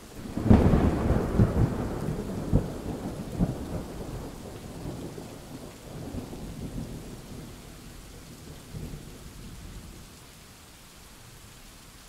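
A clap of thunder breaks about half a second in, then rolls on as a deep rumble with a few sharper cracks, fading out over about nine seconds. Steady rain falls underneath.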